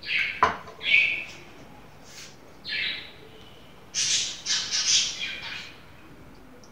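A bird chirping in short, irregular calls, in bursts about a second in and again around four to five seconds in.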